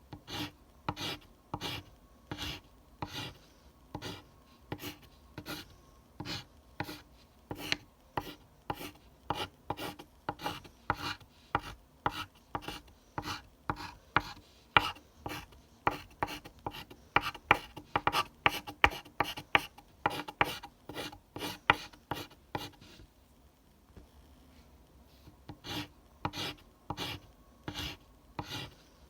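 Pencil scratching across paper in short repeated strokes, about two a second at first, growing faster and louder through the middle, then pausing for a couple of seconds near the end before starting again.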